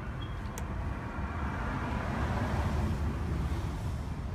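Road traffic: a steady low engine rumble, with a passing car that swells and fades about two to three seconds in.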